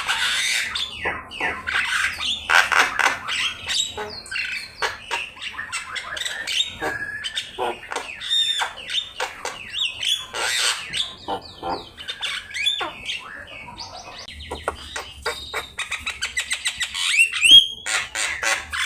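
Javan myna (jalak kebo) singing hard: a continuous jumble of harsh squawks, chatter and gliding whistled notes, with a fast run of short repeated notes near the end.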